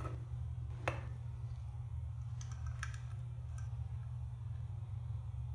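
Light clicks and taps from handling a plastic bucket lid and a bamboo skewer: one sharper click about a second in, then a few fainter ones, over a steady low hum.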